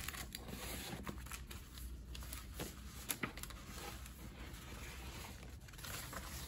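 Sheets of paper and folders rustling and sliding as they are pulled out of a packed desk file organizer, with a few light taps and clicks.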